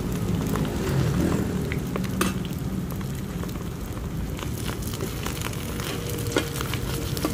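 Hoy tod omelette frying and sizzling in oil on a wide flat metal pan, while two metal spatulas scrape and clack against the pan, chopping and turning it.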